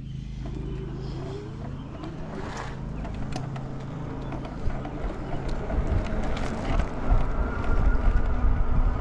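A vehicle's motor humming steadily, with a brief rise in pitch near the start. Wind rumbling on the microphone grows stronger in the second half.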